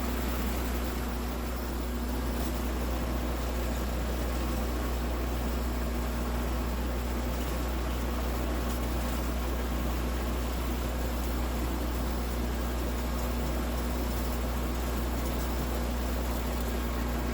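Steady machine hum with an even whirring hiss, like a fan or small motor running, unchanging throughout.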